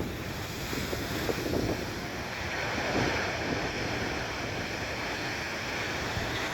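Storm-driven rough sea: surf breaking and washing continuously, swelling a little louder for a couple of seconds, with wind buffeting the microphone.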